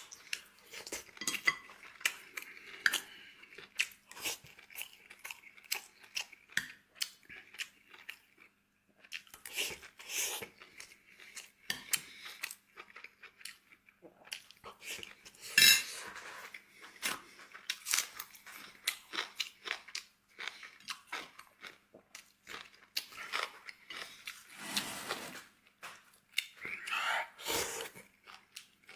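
Close-up eating sounds: a man chewing and crunching mouthfuls of egg fried rice and side dishes, with utensils clinking against the dish now and then. One sharper clink comes about halfway through.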